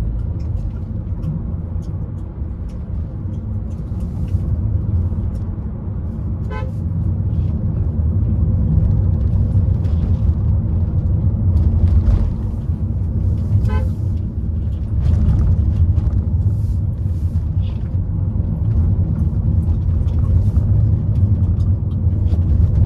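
Hyundai Creta driving on a winding road: a steady low rumble of engine and tyre noise, with two short toots about six and fourteen seconds in.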